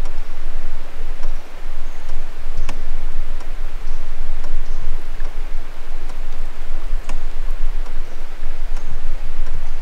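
Canoe being paddled on calm water: a steady wash of water trickling and dripping, with a few sharp light ticks.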